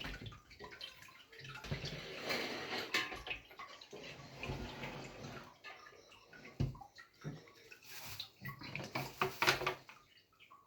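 Liquid splashing and pouring in uneven spurts, with a couple of sharp knocks.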